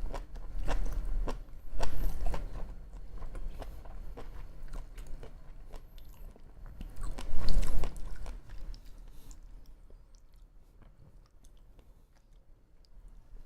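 Close-miked chewing of sushi, with wet mouth clicks and smacks; the chewing is loudest about halfway through and dies down to faint clicks over the last few seconds.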